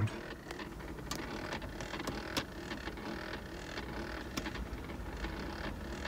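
2004 GMC Yukon's HVAC step motor behind the dash vent grille, clicking repeatedly and unevenly with the engine off. The motor keeps trying to turn instead of stopping at its position, the fault behind wrong heat/cold and mode settings.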